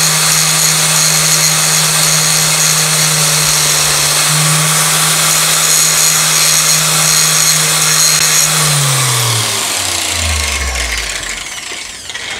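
Makita X-LOCK angle grinder running with its abrasive disc against the steel pin heads of a motorcycle chain link, a steady motor whine with a grinding hiss. About eight and a half seconds in it is switched off and winds down, its pitch falling over a few seconds.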